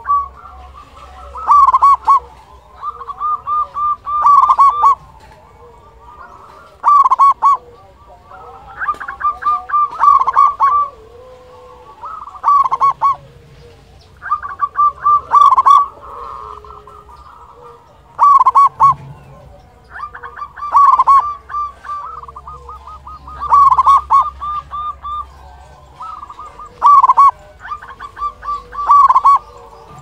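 Zebra dove (perkutut) singing: short phrases of rapid cooing notes, repeated about a dozen times, one every two seconds or so.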